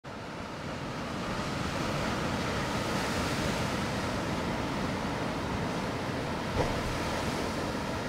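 Pacific Ocean waves breaking against and washing over shoreline rocks: a steady wash of surf that builds over the first couple of seconds, with one brief sharper slap of water about six and a half seconds in.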